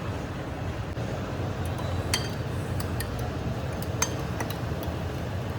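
A few sharp clinks of kitchenware, a utensil knocking against a dish or bowl, over a steady low rumble.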